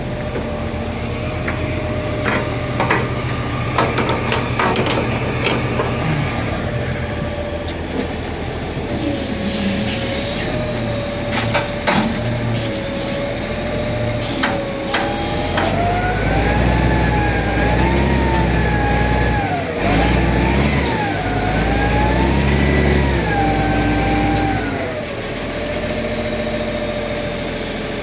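A heavy machine's engine running steadily, with scattered metal knocks and clanks. About halfway through it revs and labours under load, its pitch rising and falling for about ten seconds, then settles back to a steady idle near the end.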